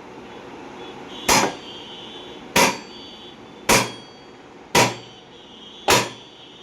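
Hammer striking metal on a top-load washing machine's clutch assembly: five sharp, evenly spaced blows about a second apart, each with a short metallic ring.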